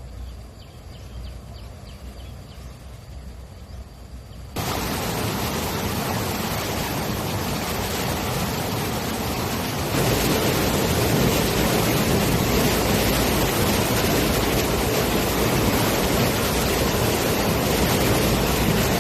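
Steady loud rushing of water released through a reservoir's floodgates, starting suddenly about four and a half seconds in and growing louder again about ten seconds in. It follows a quieter stretch of low hum.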